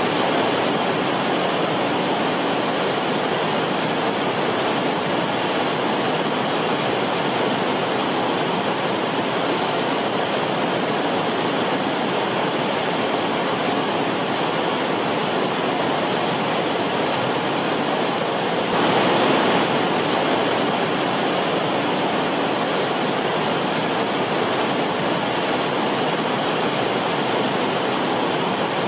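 Forest stream rushing steadily, with a brief louder surge about two-thirds of the way through.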